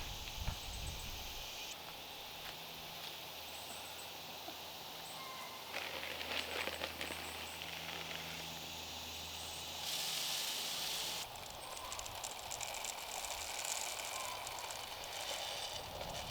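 Outdoor summer garden ambience: a steady high hiss that swells for about a second near the middle, under a low steady hum that stops about two-thirds of the way through, with scattered small ticks and rustles.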